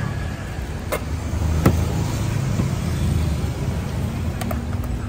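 Steady low rumble of a road vehicle's engine running, with a few sharp clicks: two in the first two seconds and several near the end.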